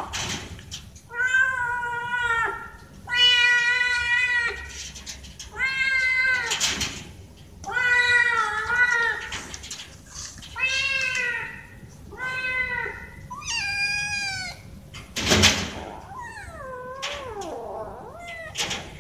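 A cat meowing loudly over and over, about eight drawn-out meows roughly every one and a half to two seconds, begging for food held out to it. A sharp knock comes about three quarters of the way through, and the last meow slides down in pitch.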